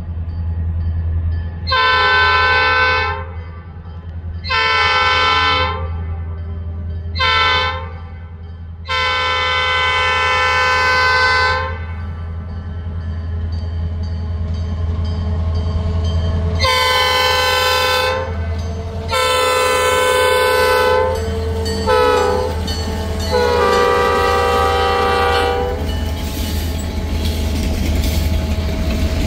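Horn of an EMD SD40-2 diesel locomotive sounding the grade-crossing signal twice, long, long, short, long, each blast a chord of several notes. Under it the locomotive's 16-cylinder two-stroke diesel engine runs steadily, and near the end the freight cars rumble past.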